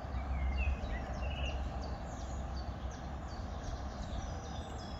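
Outdoor ambience with small birds chirping and singing in short high notes, busier from about two seconds in, over a steady low rumble.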